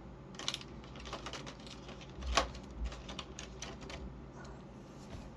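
A run of small hard plastic clicks and taps from an S.H.Figuarts action figure being handled and its tail joint worked. The loudest click comes about two and a half seconds in.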